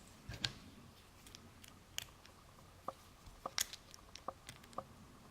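Faint, irregular small metallic clicks and ticks of a lock pick and tension wrench working the pin tumblers of an American Lock 1105 six-pin padlock.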